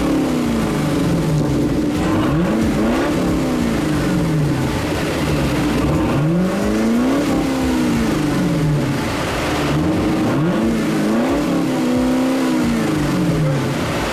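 Chevrolet Camaro's custom exhaust as the engine is revved repeatedly, its pitch rising and falling with each rev, several times over.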